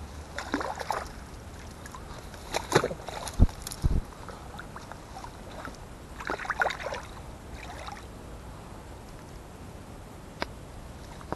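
A hooked trout splashing and thrashing at the water's surface as it is drawn into a landing net, in irregular bursts of sloshing water, with two dull thumps about three and a half seconds in. Softer splashes follow as the fish settles in the net.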